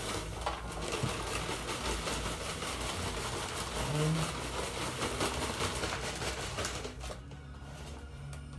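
Potting compost pouring out of a plastic bag into a plastic crate: a steady rustling hiss of falling soil with crinkling of the bag, stopping about seven seconds in.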